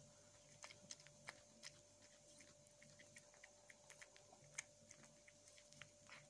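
A cat chewing dry cat food: faint, irregular crunching clicks, about two to three a second, over a faint steady hum.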